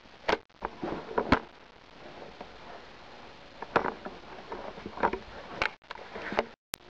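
Irregular footsteps and knocks of a person moving quickly through a house, with handheld camera handling noise; the sound cuts out briefly a few times.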